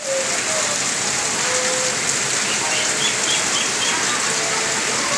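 Steady rain falling, an even hiss, with a short run of faint high chirps about halfway through.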